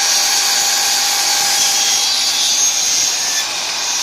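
Hercules 12-inch miter saw's 15-amp motor running at full speed as the blade cuts through a plywood shelving board.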